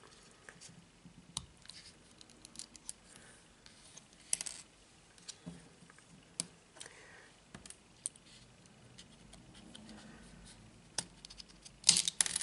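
Irregular small clicks and scrapes of a Nokia 2720 Flip phone's plastic casing and battery and SIM compartment being handled, with a louder quick run of clicks near the end.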